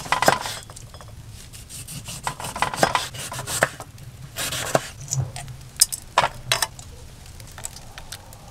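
Kitchen utensils being handled: irregular scraping and rubbing with sharp clicks and light knocks of a knife and dishes, as fruit and spices are prepared for mulled cider. The sounds thin out near the end.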